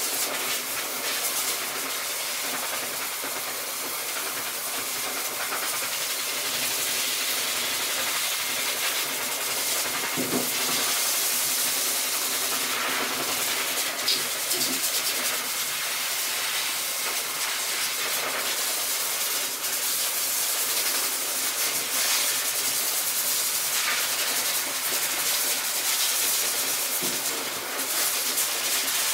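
Corded electric dog clipper running steadily as it shaves through a Husky's thick coat, a continuous hissing buzz.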